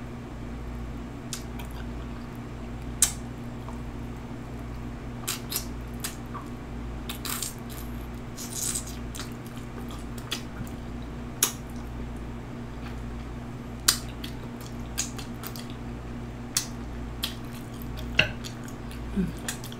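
Close-miked eating sounds while chewing beef BBQ rib: scattered wet mouth clicks and smacks at irregular intervals, over a steady low hum.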